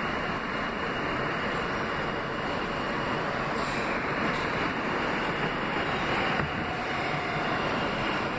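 Kawasaki R160B subway car running, heard from inside the car: a steady rush of wheel and motor noise with no distinct knocks or tones.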